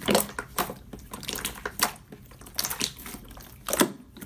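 Translucent clear slime being squeezed and pressed by hands, making a run of irregular wet pops and clicks.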